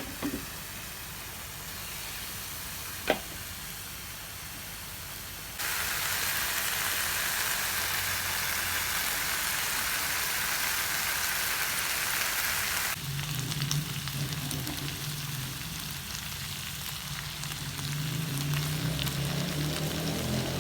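Food frying in hot oil, a steady sizzle, much louder and hissier for several seconds in the middle, starting and stopping abruptly. A single sharp click about three seconds in.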